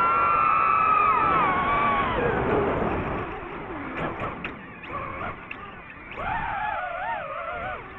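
DJI FPV drone's motors and propellers whining at high throttle, the pitch sliding down and fading about two seconds in as the throttle comes off. About six seconds in the whine comes back, wavering up and down with the throttle.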